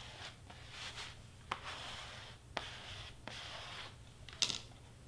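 Hands rubbing and rustling sheet material (cardstock and heat transfer vinyl) in bursts, with three sharp clicks, the loudest near the end.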